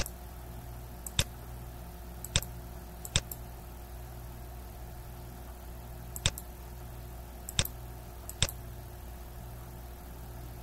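Computer mouse button clicks: seven sharp clicks, four in the first few seconds and three more after a pause of about three seconds. A steady low hum runs underneath.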